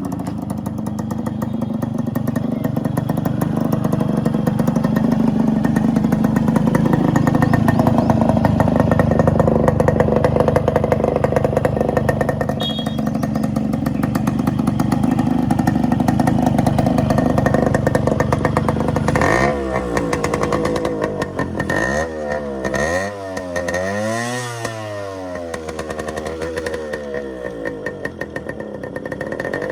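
Modified Yamaha RX135 two-stroke single-cylinder engine running steadily through an aftermarket muffler. In the second half it is revved in a quick series of throttle blips, the pitch swinging up and down several times.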